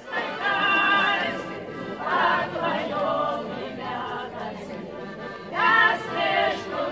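A women's folk ensemble singing in chorus, several voices together, holding long notes.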